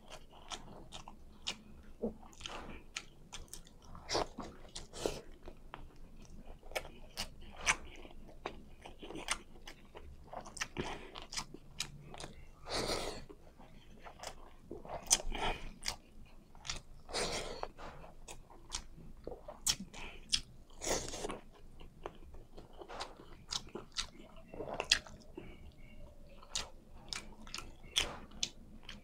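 Close-miked wet chewing and lip-smacking of tender beef shank meat from a bowl of kansi, eaten by hand. There are many short smacks throughout and a few longer, louder ones.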